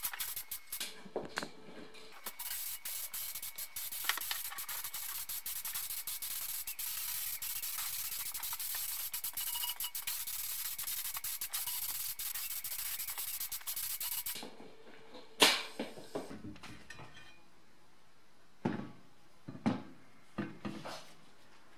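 Compressed-air gravity-feed spray gun hissing as it sprays paint: a few short spurts, then a steady spray for about twelve seconds before it stops. Then several separate knocks as the painted metal strut housings are set down on a wooden workbench.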